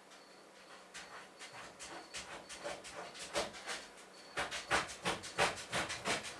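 Rapid rhythmic scratching or scraping strokes, about four a second, starting about a second in and growing louder past the halfway point.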